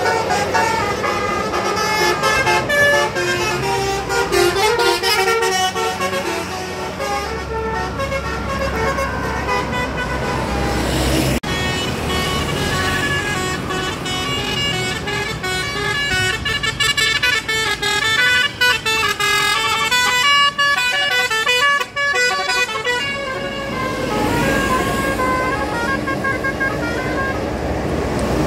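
Bus 'telolet' horns: a set of multi-tone air horns playing short, stepping melodies over and over, with a bus engine running underneath.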